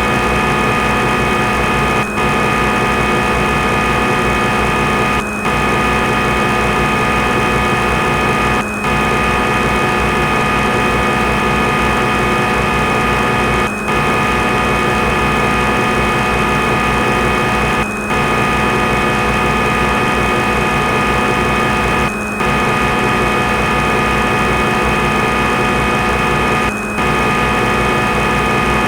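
Swansoft CNC simulator's lathe machining sound effect, a steady machine hum made of many fixed tones, as the simulated GSK 928 TC lathe runs its part program in auto mode. It dips briefly every three to five seconds.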